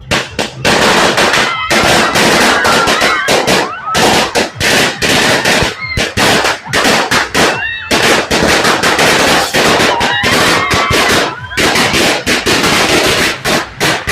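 Firecrackers and fireworks going off in a dense, rapid string of bangs, many a second, with only brief lulls.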